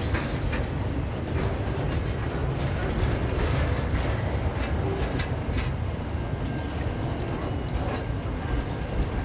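Freight train wagons rolling past: a steady low rumble of steel wheels on rail, with scattered clicks and clanks.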